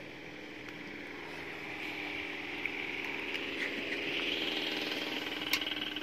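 A motor or engine running steadily, its hum growing louder over the first few seconds, with a sharp click near the end.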